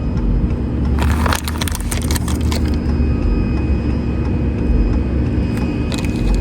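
Steady low rumble of a vehicle with a faint steady hum, and a few sharp clicks and taps about a second in and again near the end.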